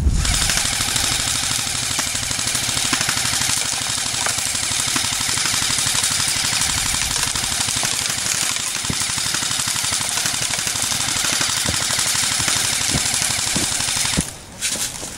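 Airsoft rifles firing full-auto in a sustained, dense rapid rattle of shots that stops abruptly about fourteen seconds in.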